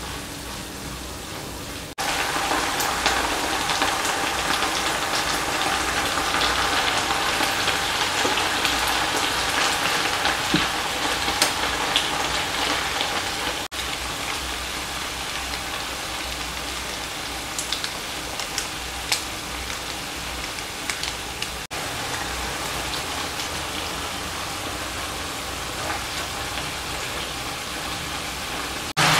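Green beans, onion and chili stir-frying in a frying pan, with sliced meat and teriyaki sauce added later: a steady sizzle with scattered small pops and ticks. The sizzle gets louder about two seconds in and eases off about halfway through.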